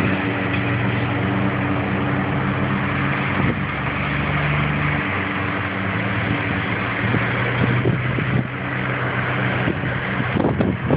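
Semi truck's diesel engine running with a steady low drone, its pitch stepping up and down a few times. Some gusty wind noise on the microphone near the end.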